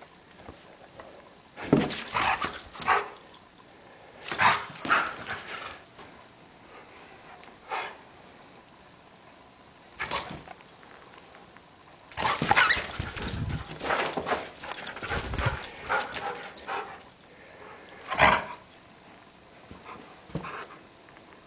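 Samoyed barking and yipping in play, in short separate bursts with a longer run of it past the middle.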